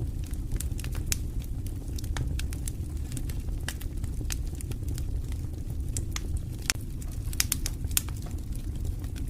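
Wood campfire crackling, with irregular sharp pops and snaps over a steady low rumble; a quick cluster of louder pops comes about seven to eight seconds in.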